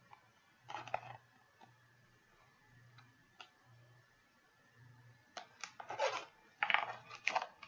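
Paper rustling and soft knocks as a picture book is handled and its pages shift: a short rustle about a second in, a few faint clicks, then a run of louder rustles in the last two seconds.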